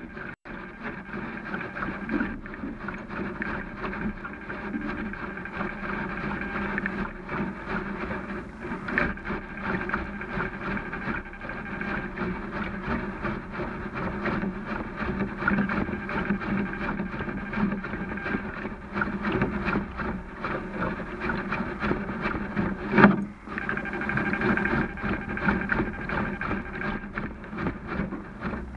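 A dog lapping water from a watering can, heard from underwater at the bottom of the can: rapid, muffled sloshing strokes, several a second, with a short break about three-quarters of the way through.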